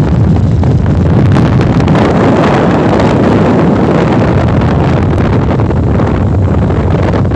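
Loud, steady wind buffeting the phone's microphone on a two-wheeler riding at speed, a dense low rumble that covers any engine or tyre sound.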